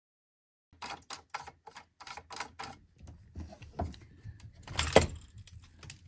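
Quick clicks at the battery terminal hardware, about three or four a second, starting just under a second in, then scattered smaller clicks and one louder clunk about five seconds in as the hands work the terminal and bus bar.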